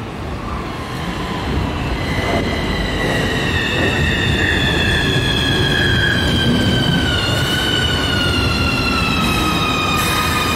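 Keikyu 1000-series train's traction motors, fed by a Siemens IGBT VVVF inverter, whining as it pulls away, several tones sliding slowly lower over the rumble of wheels on rail. The motors groan as the wheels spin on the snowy rails.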